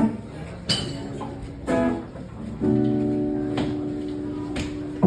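Guitar strummed between sung lines of a live song, with a chord struck about once a second. Near the middle a chord is left to ring for a couple of seconds before the next strum.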